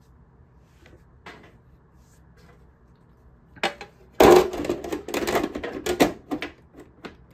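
Desktop PC case panel being fitted back onto the chassis: a couple of sharp clicks about three and a half seconds in, then about two seconds of scraping and rattling, and a few last clicks.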